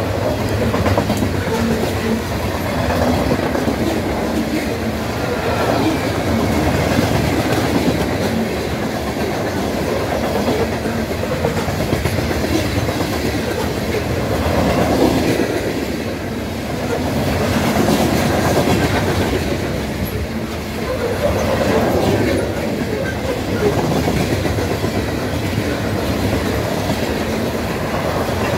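CSX freight train's loaded hopper cars rolling past close by: a steady rumble of wheels on rail that swells and eases slightly as the cars go by.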